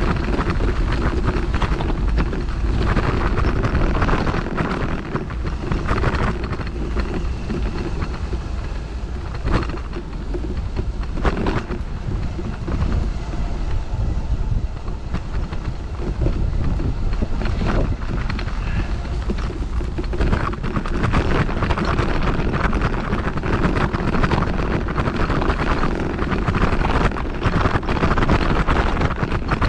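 Wind buffeting the microphone with a constant low rumble, broken by a few sharp knocks.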